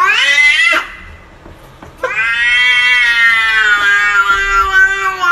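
Cat yowling. A drawn-out meow rises in pitch and breaks off about a second in. A longer yowl starts about two seconds in, sinks slowly in pitch and stops near the end.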